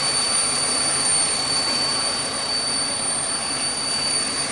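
Idling 2005 Chevy Impala engine with a steady hiss from under the hood, which the mechanic suspects is a vacuum leak. A thin, steady high-pitched whistle runs over it.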